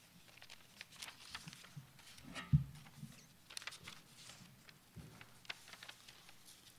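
Sheets of paper rustling and clicking as they are handled, with scattered small taps and one louder low thump about two and a half seconds in.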